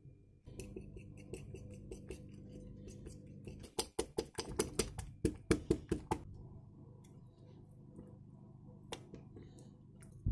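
A metal fork beating flour into egg batter in a ceramic plate, the tines clicking rapidly against the plate, about five clicks a second for a couple of seconds near the middle, with softer scraping and tapping around it.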